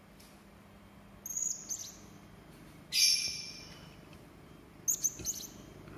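Serindit (hanging parrot) giving sharp, harsh high-pitched calls: a few short notes about a second in, one loud harsh call about three seconds in, and a quick run of sharp notes near the end.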